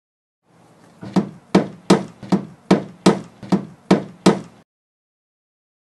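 Hammer striking a plywood wall nine times in a steady rhythm, about two and a half blows a second.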